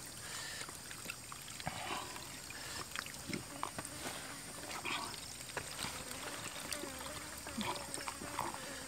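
Drinking water poured from a clay jug into coconut-shell cups in short, faint trickles, with light knocks of the shells.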